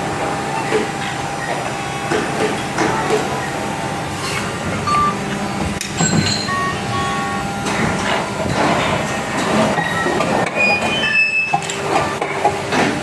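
Factory machinery running: a steady mechanical din with frequent knocks and clatters, and a few short electronic beeps about five, seven and eleven seconds in.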